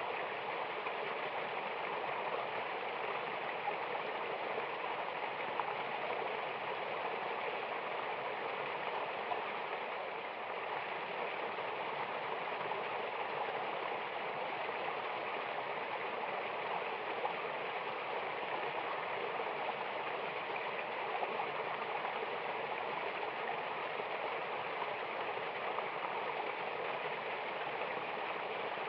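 Mountain river or waterfall: steady rushing of flowing water.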